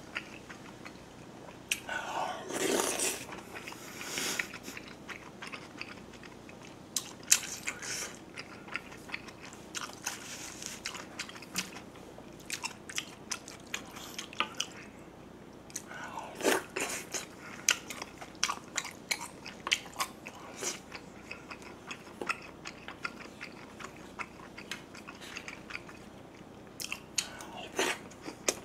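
Close-up eating sounds: chewing and slurping chewy potato sujebi flakes and saury kimchi stew, with many small wet mouth clicks. Louder slurps come about two to four seconds in, again around halfway, and near the end.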